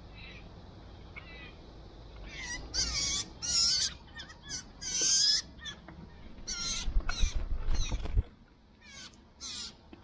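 Young blue jay yelling at its parent: a string of about a dozen harsh calls, starting a couple of seconds in.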